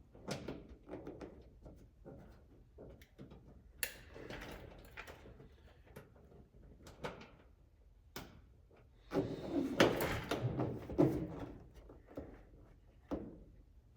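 Scattered clicks, knocks and rustling clatter of hand work on a car's fender, as parts and hardware are handled into a hard-to-reach spot. The clatter is busiest about nine to eleven seconds in.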